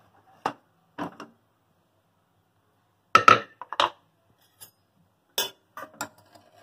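Metal clanks of an aluminium Prestige pressure cooker being opened: a couple of single clanks as the lid is worked loose, then a louder cluster of clanks a little past three seconds in as the lid comes off. A steel ladle then clinks against the pot several times.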